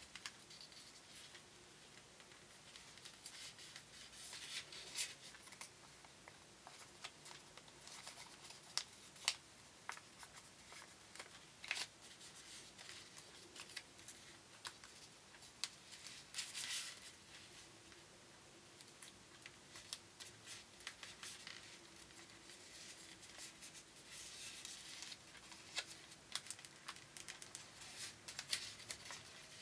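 Sheets of origami paper being handled, folded and creased by hand: irregular crinkles, rustles and short sharp paper clicks, with a busier flurry of rustling about halfway through.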